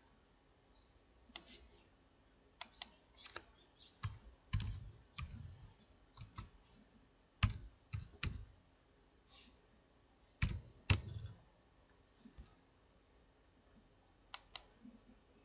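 Computer keyboard being typed on in short, irregular runs of taps with pauses between them. A few keystrokes land with a heavier thump.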